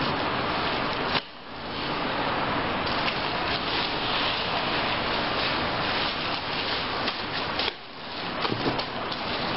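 Steady hissing background noise with a few soft clicks and knocks. The sound drops away abruptly about a second in and again about eight seconds in, then swells back.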